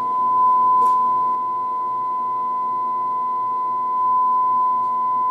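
Steady 1 kHz test tone played through a loudspeaker driven by a small 1970s tube amplifier at high output, with a fainter second tone an octave above, the amplifier's distortion showing. A light click about a second in.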